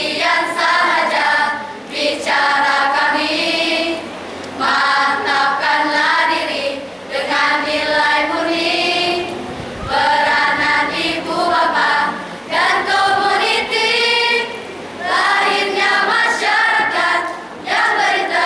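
A school choral-speaking group of secondary students singing together in Malay, in short phrases of about two seconds with brief breaks between.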